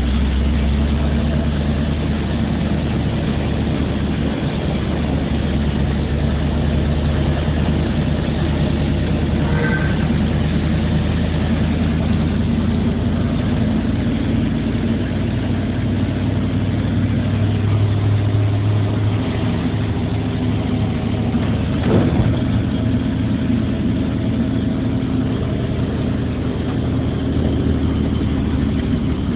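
Car engine running steadily under a constant rush of wind and road noise, heard from inside the cabin while driving on a storm-flooded road. A single knock about twenty-two seconds in.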